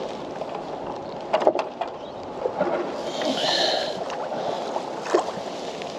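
Small waves lapping against a kayak hull in a breeze, with a couple of sharp knocks about a second and a half in and another about five seconds in.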